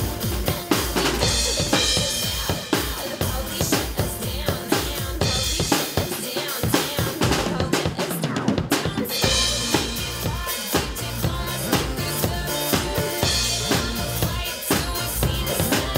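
Acoustic drum kit played live: a steady beat of bass drum, snare and cymbals. The drumming stops briefly about halfway through, then picks up again.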